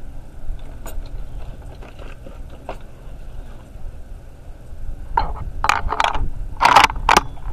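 Low rumble of wind on the microphone, with short scrapes and clicks of the rifle and shooter being handled, most of them in a cluster in the last two and a half seconds.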